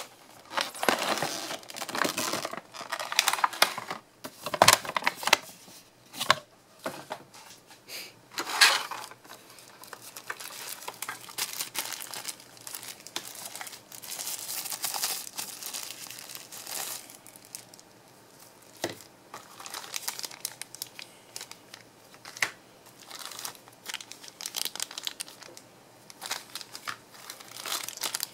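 Plastic packaging crinkling and rustling in irregular bursts as bagged accessories, a paper wrapper and a clear plastic tray are handled, with a few sharp clicks and knocks.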